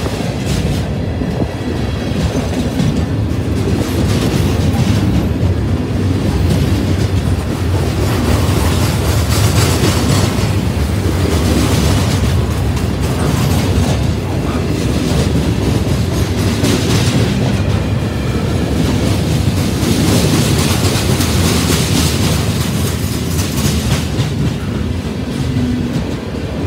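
Freight cars of a Canadian National train rolling past a grade crossing: a steady, loud rumble of steel wheels on rail, with repeated clicks and clacks as the wheels pass over rail joints.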